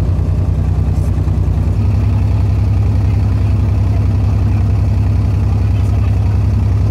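Abra water taxi's diesel engine running steadily, heard from on board as a low drone; it gets a little louder about two seconds in.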